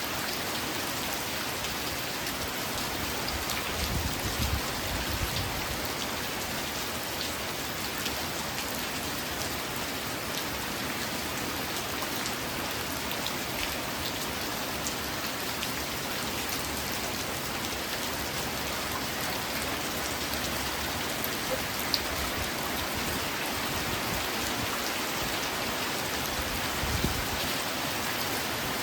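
Steady rain falling on a surface, an even hiss with single drops ticking out here and there, and brief low swells about four seconds in and again near the end.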